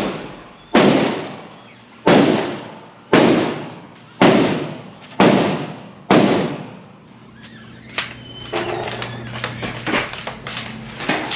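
Gunshots on a shooting range: six sharp reports about a second apart, each ringing out in a long echoing decay, followed by a few small clicks over a low steady hum.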